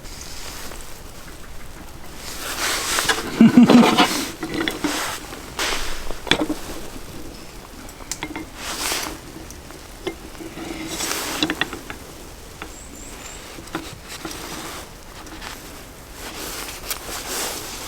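Irregular rustling, scraping and light knocking from hands working with bread and cooking gear, loudest in a cluster of handling noise about 3 to 4 seconds in, with a few sharp clicks.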